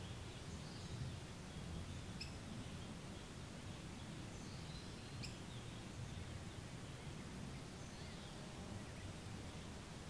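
Faint, steady hush of masses of overwintering monarch butterflies flying, with a few faint bird chirps and two small ticks about two and five seconds in.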